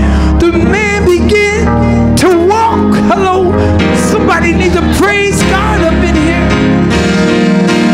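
A man singing into a microphone with long, wavering held notes over guitar and bass music; the voice drops out near the end, leaving the guitar playing.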